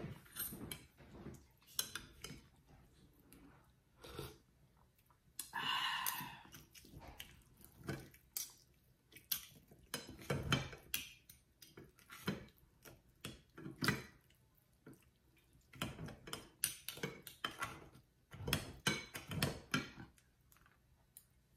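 Knife and fork cutting food on a plate: repeated short clicks and scrapes of cutlery against the plate, with small pauses between strokes.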